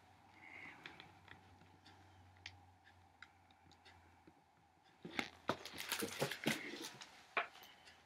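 Handling noise: a flurry of knocks and rustles from a book being moved and set down, starting about five seconds in and lasting about two seconds, over a faint steady hum.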